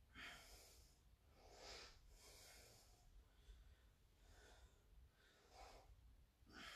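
Faint, heavy breathing of a man exerting himself through jackknife sit-ups: several short breaths a second or two apart.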